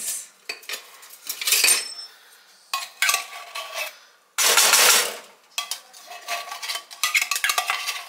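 Kitchen utensils scraping and clinking against cookware in a string of short, uneven bursts, some with a faint metallic ring. The loudest scrape comes about halfway through.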